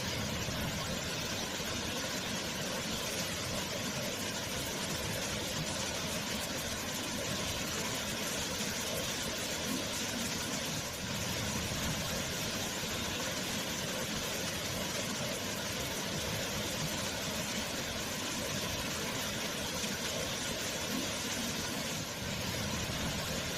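Waterfall: water falling and rushing with a steady, even noise that does not change.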